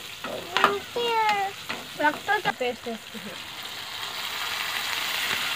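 Food frying in a pan, a steady sizzle that swells over the second half as a bowl of paste is poured in. Before it, a few short high cries that fall in pitch, and some brief voice-like sounds.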